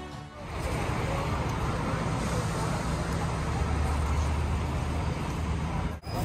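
Road traffic noise: a steady low engine rumble from passing vehicles, swelling about four seconds in.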